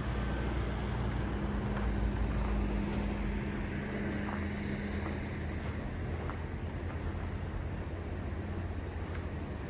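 A motor vehicle's engine running close by with a steady low hum over street noise. The hum eases about six seconds in.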